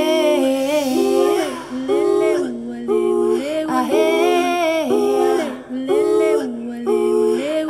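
Background music of several voices singing in harmony, with held notes in short phrases about a second long.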